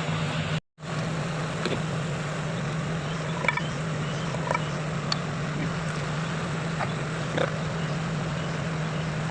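Hitachi excavator's diesel engine idling steadily, with a few light metallic clicks and clinks from work on the machine. The sound briefly cuts out under a second in.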